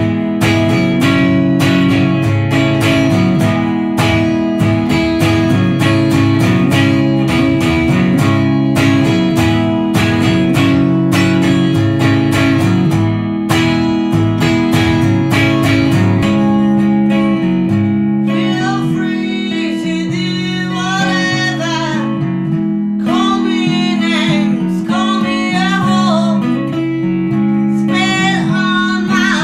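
Blues song on strummed acoustic guitar: the guitar alone for about the first sixteen seconds, then a woman singing over it.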